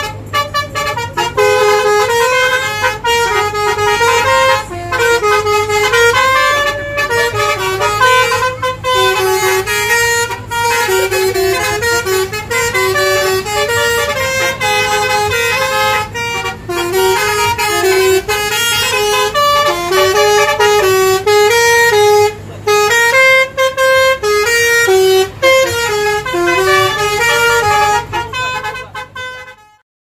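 Telolet basuri multi-tone bus air horn playing a fast melody of stepped notes over a steady low engine hum. It cuts off abruptly just before the end.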